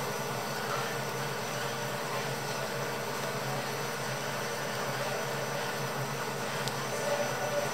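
Steady low hum and hiss of a running machine, with a faint click near the end.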